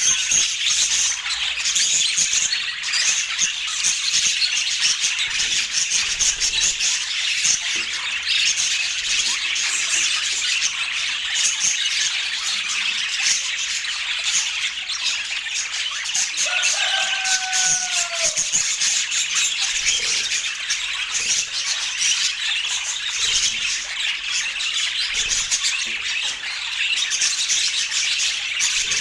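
A flock of budgerigars chattering and warbling continuously, a dense stream of rapid chirps and squawks. About 17 seconds in, one clearer, lower call falls slightly in pitch.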